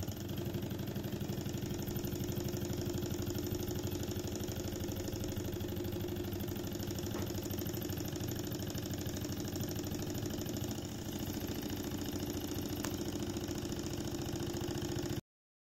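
Model Stirling hot-air engine running steadily at speed while belt-driving its small generator: a fast, even mechanical clatter that cuts off suddenly near the end.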